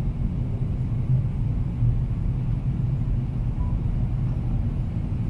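Steady low rumble of a Boeing 777-300ER's cabin in flight: engine and airflow noise heard from a window seat.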